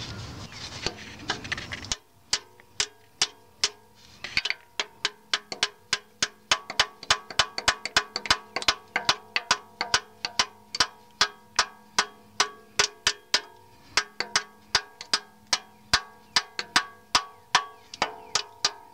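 A 2-pound hammer taps, steel on steel, on the end of a Lisle gasket separator tool, wedging its blade through old RTV sealant between the oil pan and the engine block. The quick, even taps come about two or three a second, each with a short ring, and settle into a steady rhythm about two seconds in.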